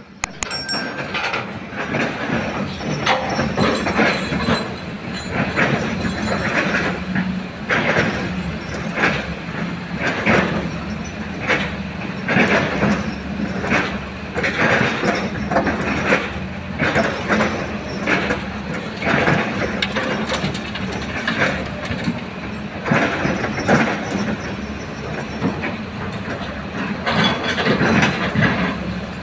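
Excavator engine running steadily, with frequent irregular metallic clanking and rattling from the machine at work.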